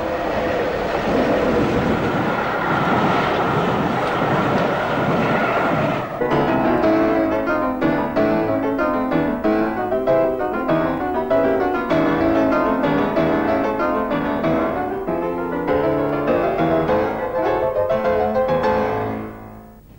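Background music led by piano: a dense, busy passage for the first few seconds, then clearly separate piano notes, fading away near the end.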